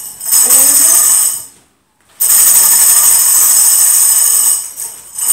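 Hand-held dance tambourine (pandero) shaken rapidly, its metal jingles rattling in a sustained roll: a shake of about a second, a short break, then a longer shake of about two and a half seconds.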